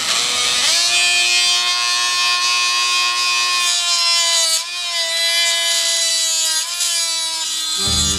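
Dremel rotary tool with a stone grinding bit grinding the stamped-steel AK receiver: a steady high whine over a harsh grinding hiss, the whine climbing in the first second as the tool comes up to speed and dipping briefly twice as the bit is pressed into the metal.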